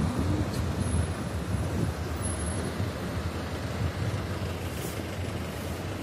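Wind buffeting the microphone: a steady rushing noise with an uneven low rumble that eases off slightly toward the end.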